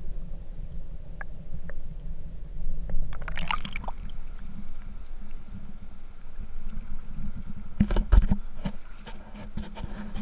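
River water heard through a submerged camera as a muffled low rumble, then a burst of splashing about three seconds in as the camera breaks the surface. Near the end come a cluster of sharp splashes and knocks.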